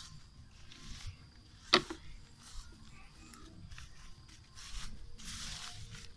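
Footsteps and rustling through grass, weeds and dry leaves, in short bursts of crackling noise. A single sharp knock a little under two seconds in is the loudest sound.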